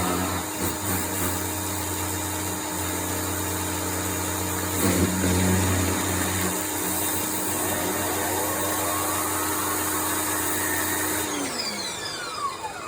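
Power washer running and spraying water in a steady hiss over a steady motor hum; about 11 seconds in, the motor winds down with a falling pitch as it stops.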